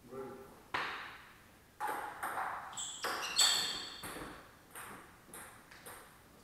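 Table tennis rally: the ball clicking off the players' bats and bouncing on the table, roughly two sharp hits a second, each with a short ringing tail. The hits stop near the end as the rally ends.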